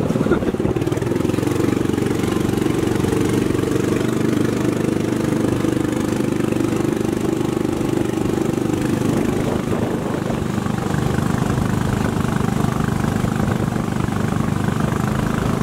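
Small boat's engine running steadily at an even speed.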